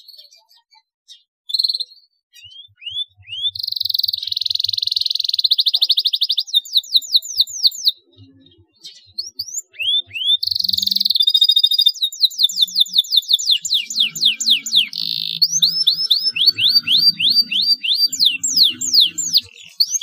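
Domestic canary singing loudly: high-pitched phrases of rapid trills alternating with fast runs of repeated falling whistles, with short pauses about a second and eight seconds in.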